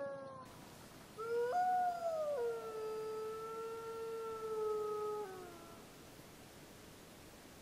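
Wolf howling: a fading tail of one howl, then a single long howl that leaps up in pitch, drops back to hold a steady note for about three seconds, and falls away at the end.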